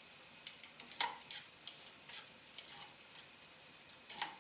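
Kitchen tongs clicking and tapping against a frying pan as shrimp are turned over: a scatter of light, irregular clicks.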